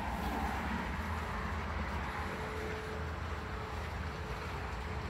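Wind buffeting the microphone: a steady low rumble under a hiss. A faint steady hum comes in about halfway through.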